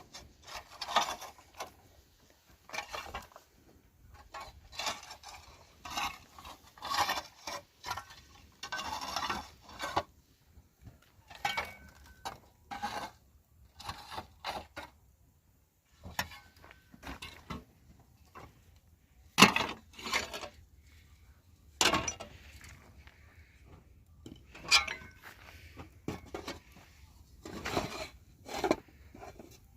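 Irregular clattering and clinking of hard objects being handled, with two louder sharp knocks about two-thirds of the way through.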